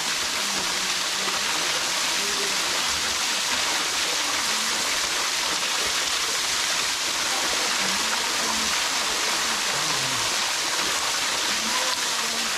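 Small waterfall splashing down steadily: an even, unbroken rush of falling water.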